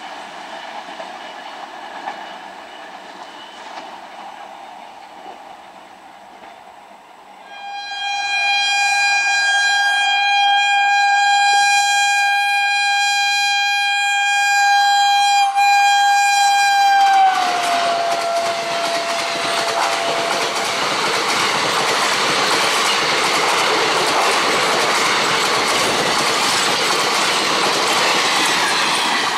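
Faint train rumble, then about eight seconds in a WAP-4 electric locomotive sounds one long horn for about ten seconds, its pitch dropping as the locomotive passes. The express coaches then rush by with loud rumble and wheel clatter.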